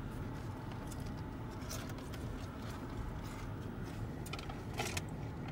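Low steady rumble of a car driving slowly, heard from inside the cabin, with a few faint clicks and taps, the clearest a little before the end.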